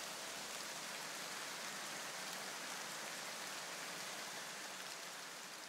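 A steady, even hiss with no tune or beat, fading slowly toward the end: the noise tail of the electronic background music dying away.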